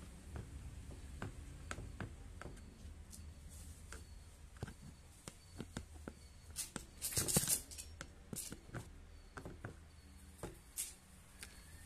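Screwdriver driving a screw through a swivel caster's metal mounting plate into a plastic base: scattered clicks and taps of metal on metal and plastic, with a louder scraping rattle lasting about a second near the middle.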